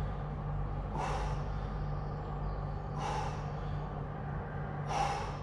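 A man's short, forceful exhalations, three of them about two seconds apart, one breathed out with each rep of a dumbbell shoulder press, over a steady low hum.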